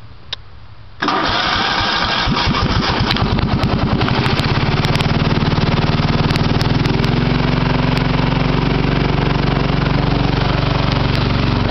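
Cub Cadet riding lawn tractor engine being started with the key. After about a second of quiet, the electric starter cranks for about two seconds, then the engine catches and settles into a steady run.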